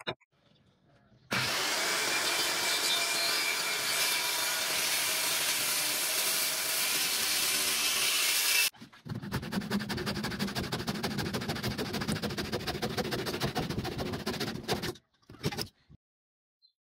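A 1510-watt handheld circular saw cutting through a thick wooden post, running steadily for about seven seconds. After a short break, another power tool works the wood for about six seconds, with a rougher, fast-pulsing sound.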